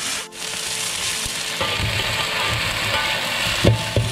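Midin fern shoots sizzling in hot oil in a wok. Stirring and scraping with a metal spatula set in about a second and a half in, and a sharp knock of the spatula against the wok comes near the end.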